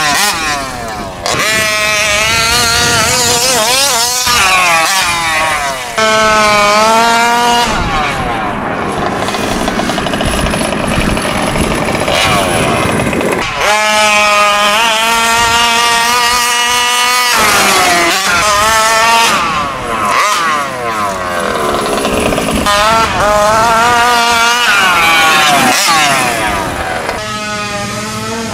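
Taylor 46GT 46cc two-stroke engine in a fifth-scale gas RC truck, revving up and down over and over as the truck is driven hard, with short drops where the throttle is let off.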